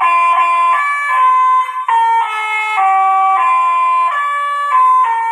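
Telolet horn playing a melody: a run of held notes, each lasting a fraction of a second, stepping up and down in pitch, with two or more tones often sounding together.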